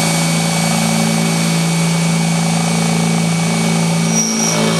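Milwaukee cordless drill running at high speed, boring a 13 mm steel bit into steel with a steady whine, and a brief high squeal about four seconds in. Right at the end the motor cuts out with the trigger still held: the drill's electronic kickback brake stopping it just short of breakthrough.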